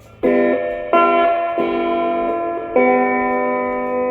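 Electric guitar chords played through a 1960s Sano tube amplifier's dry channel, with no effect on it, to test the repaired amp. Four chords are struck, the last one left to ring.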